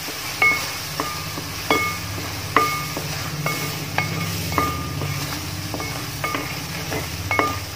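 Spatula stirring thick pickle masala in an aluminium pot, knocking against the pot's side about once or twice a second so that the metal rings briefly each time, over a steady low hum.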